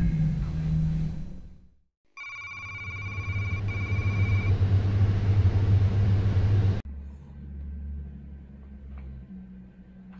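Film sound design: a low rumble fades out, then a warbling electronic ringing tone sounds twice over a swelling low hum that cuts off suddenly, leaving a quieter low hum.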